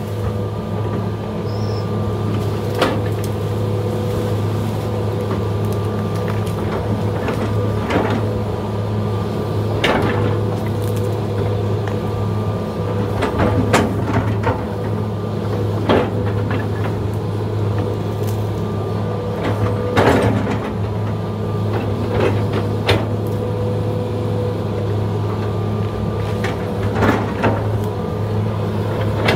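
Excavator's diesel engine running steadily under work, with irregular sharp knocks and clanks from the machine every few seconds.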